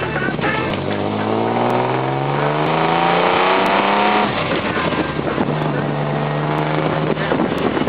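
1952 Jaguar XK120's 3.4-litre twin-cam straight-six pulling hard, heard from the open cockpit: the revs climb steadily for about four seconds, then fall away and the engine settles into a steadier, lower run.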